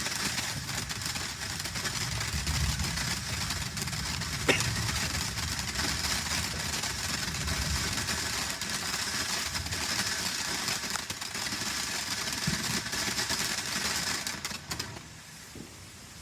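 A firework burning with a steady hiss and crackle, with one sharp pop about four and a half seconds in; it cuts out suddenly near the end.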